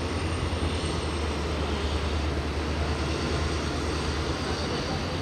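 Passenger train coaches rolling past on the track: a steady rumble and rattle of wheels on rail, with a thin high-pitched whine above it. The deep rumble eases slightly about half a second in.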